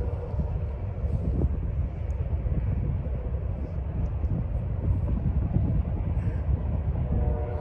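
Low, steady rumble of a distant freight train, with no horn sounding. A few faint ticks and chirps sit high above it.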